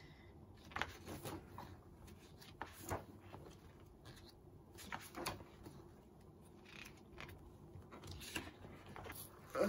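Pages of a ring-bound photobook being turned by hand: several soft paper swishes and rustles at irregular intervals.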